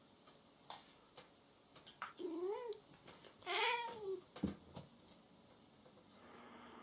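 A domestic cat meowing twice, two drawn-out calls that rise and fall in pitch, the second louder and longer. A few light taps and one sharp knock come around them.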